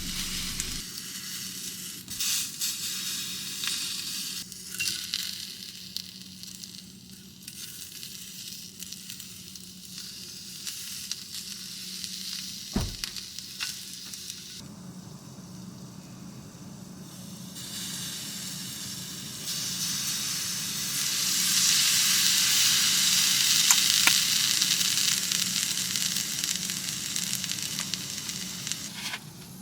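Squid sizzling in a hot frying pan, the sizzle swelling much louder about two-thirds of the way through and easing off near the end. A single knock sounds about halfway.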